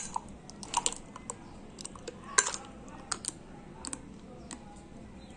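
Irregular light clicks and clinks, like kitchenware being handled, while sweet lassi is poured from a mixing bowl into a terracotta cup.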